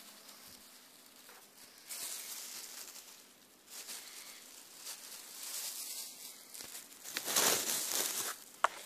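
Thin plastic bag crinkling and rustling in bursts as it is handled, loudest about seven to eight seconds in, with a sharp click near the end.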